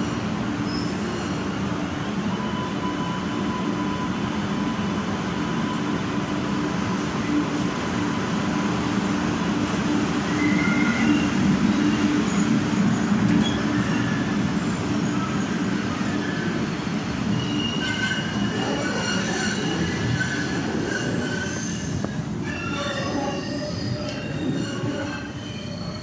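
Green Line subway train running through Boylston station, a loud steady rumble. In the last third several high, metallic wheel squeals sound on top of it.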